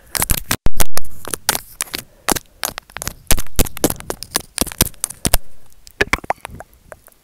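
ASMR mouth trigger: teeth biting and clicking on a small white stick held at the lips, making a rapid, irregular run of sharp clicks and crackles. The loudest burst comes just before a second in.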